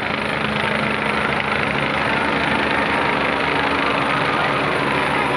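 Helicopter flying low overhead, its rotor and engine making a steady, continuous drone.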